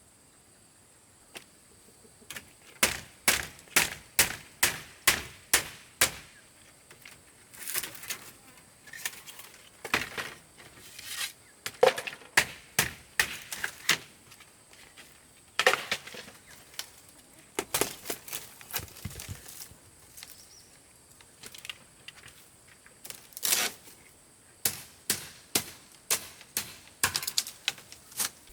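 Repeated sharp blows on wood or bamboo, as in chopping or hammering, about two a second in runs broken by short pauses.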